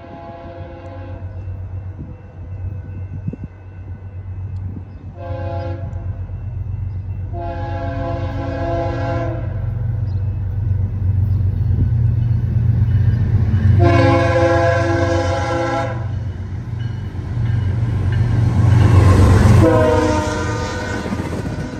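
BNSF diesel freight locomotive sounding its multi-note air horn in five blasts: a long one at the start, a short one about five seconds in, then long ones at about seven, fourteen and nineteen seconds. Under the horn is the steady low rumble of the locomotive, which grows loudest as it passes close by near the end.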